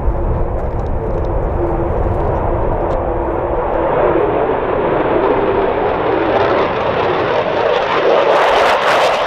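F-16 fighter jet engine noise on a low approach, growing louder and harsher as the jet closes in. It turns into a ragged crackle in the last second as the jet passes close.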